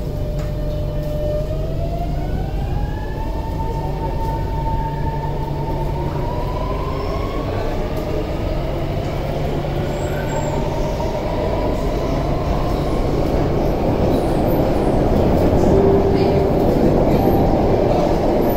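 Alstom ONIX IGBT-VVVF traction inverter whining inside an Alstom Metropolis C751C metro car as it accelerates: the whine holds one pitch briefly, then rises and keeps climbing, while the rumble of the wheels on the rails grows louder.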